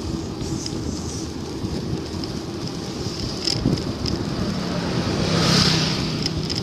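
Wind buffeting the microphone over road rumble while riding a bicycle, with a louder whoosh that rises and falls about five and a half seconds in.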